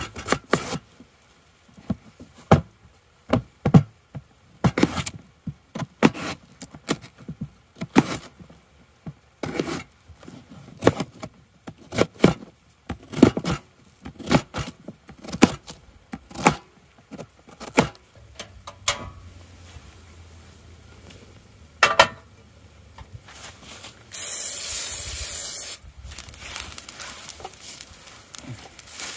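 Chef's knife chopping a raw potato into cubes on a hard plastic surface: a long run of irregular sharp knocks and blade scrapes. Near the end comes a couple of seconds of loud steady hiss.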